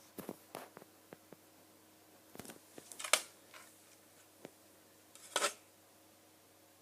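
Handling noise: irregular clicks and light knocks with a few short scrapes, the loudest about three seconds in and another just past five seconds.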